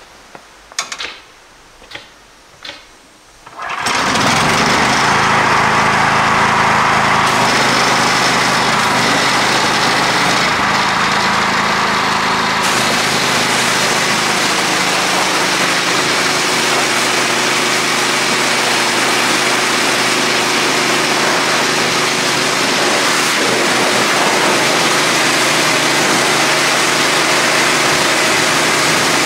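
A few short clicks, then the gasoline engine of a pressure washer comes on about four seconds in and runs steadily, with the hiss of the high-pressure spray hitting concrete.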